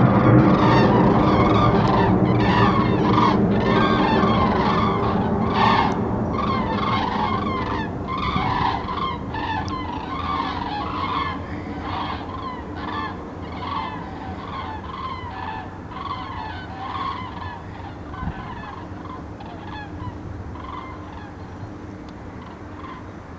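A flock of large migrating birds passing overhead, many calling over and over in loud honking calls that grow fainter as the flock moves away. At first a jet airliner's low engine rumble lies under the calls, fading out over the first several seconds.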